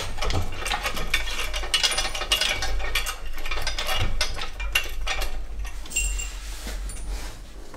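Dense, irregular metallic clicking and clinking of hand tools and parts being worked in a van's engine bay, thinning out over the last couple of seconds, over a steady low hum.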